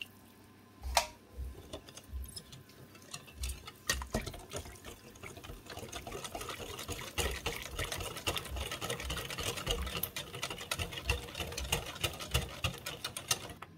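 Wire whisk beating thin rice-flour and coconut-cream batter in a glass bowl: wet sloshing with quick clicks of the wires against the bowl. A few scattered taps at first, then from about four seconds in it runs steadily until it stops just before the end.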